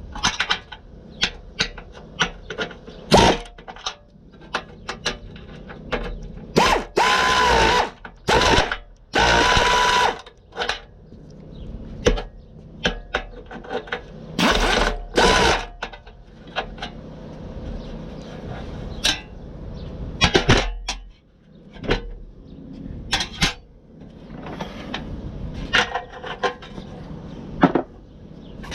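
Bolts being fitted with hand and power tools: a string of metal clicks and knocks, and a handheld power tool whirring twice for about a second and a half each, its pitch rising as it spins up, with two shorter runs a few seconds later.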